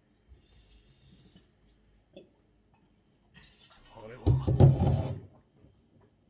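Near silence for about three seconds, then a short line of voice dialogue from the anime, loudest about four to five seconds in.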